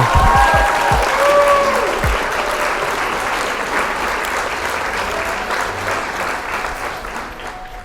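Crowd applause and cheering with a few whistles near the start. It is loudest at first and slowly dies away.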